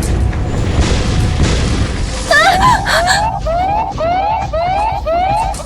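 A heavy low rumble, then about two seconds in a cockpit warning alarm starts up: a rising whooping tone repeating about twice a second, over the continuing rumble. The alarm signals an engine failure breaking out.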